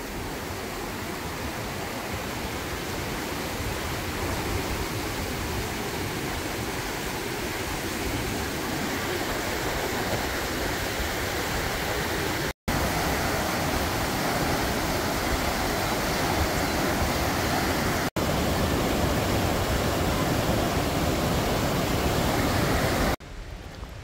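Steady loud rush of whitewater from a fast mountain stream tumbling over boulders; it drops away suddenly near the end.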